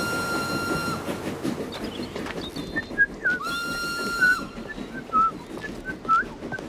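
A steam locomotive's whistle blown twice: two steady blasts about a second long, some three seconds apart. Birds chirp in the second half.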